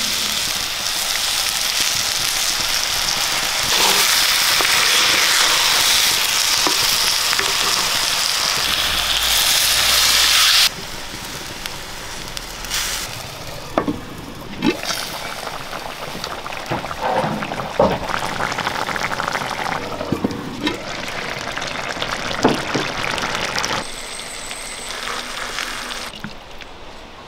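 Onion-tomato masala sizzling in hot oil in a pot, a loud, steady hiss, for about the first ten seconds. It stops suddenly. After that comes a quieter, low sizzle with a few light clicks and knocks, as a lid is handled on the pot.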